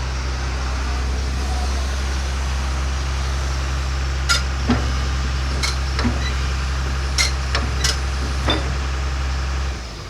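Komatsu PC200-6 excavator's diesel engine running steadily, with about seven sharp knocks from the machine in the second half. The engine sound drops off near the end.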